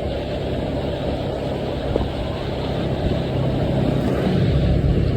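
A motor vehicle running steadily, a low rumble that grows a little louder near the end.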